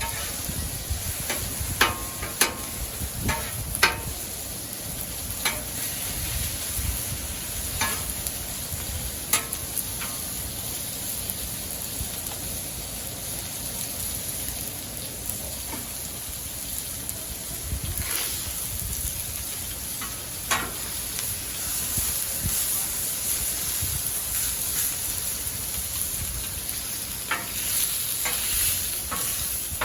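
Food sizzling steadily on a Blackstone flat-top griddle, with sharp metal clicks and taps scattered through it, several in the first ten seconds and a few later.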